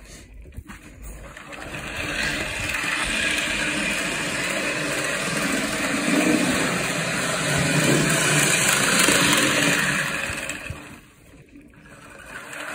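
Rivarossi HO-scale GG1 electric locomotive model running around the layout track, a steady whir of its motor and gears with the wheels rolling on the rails, just serviced with its axles freshly oiled. The sound builds over the first two seconds, falls away about eleven seconds in, and picks up again right at the end.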